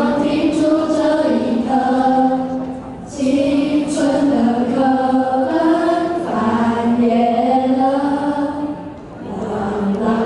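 A children's choir singing a song in long held notes, with a short break between phrases about three seconds in and another near the end.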